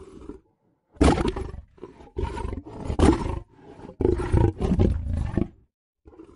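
Film sound effect of a Tyrannosaurus rex roaring: a faint short growl, then four loud, harsh roars starting about a second in, the last and longest lasting about a second and a half.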